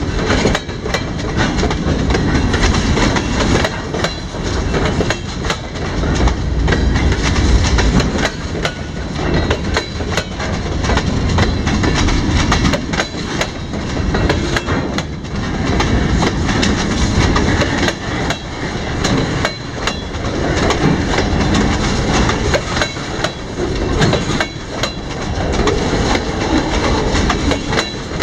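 Freight cars of a CSX mixed freight train rolling past close by: steel wheels rumbling on the rail, with frequent sharp clicks and clanks as the wheels pass over the rail joints.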